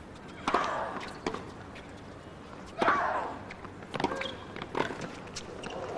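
Tennis serve and rally: sharp pops of rackets striking the ball, five or so hits roughly a second apart, one about three seconds in the loudest, over a faint hum of the crowd.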